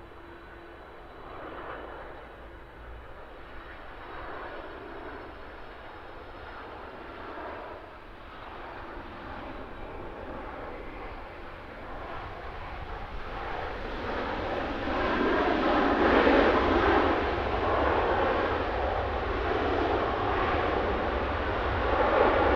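Boeing 767-300ER airliner landing: jet engine noise on the approach, then after touchdown a loud rushing engine noise that swells from about twelve seconds in and stays high through the landing roll, typical of reverse thrust. A steady low rumble runs underneath.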